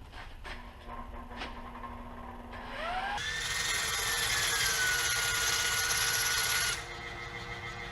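A few handling clicks, then a small power grinder spins up with a rising whine about two and a half seconds in and runs steadily for about four seconds, grinding the sides off a small part, before it stops.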